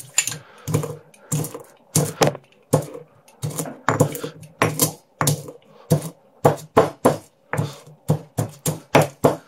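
Stone pestle pounding a mix of whole dry spices (allspice, nutmeg, cloves and star anise) in a stone mortar: a run of sharp knocks, about two a second, coming faster, about three a second, in the second half.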